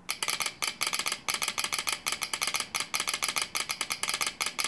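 Telegraph key and sounder clicking out Morse code at a fast, uneven dot-and-dash rhythm: a railway telegram being sent by hand.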